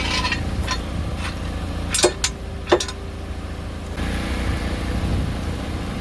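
A few sharp metallic clinks about two seconds in, the last followed by a ringing tone lasting over a second, over a steady low rumble.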